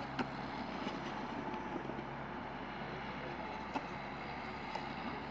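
Skateboard wheels rolling over pavement, a steady rumble with a couple of short clicks, one just after the start and one near the end.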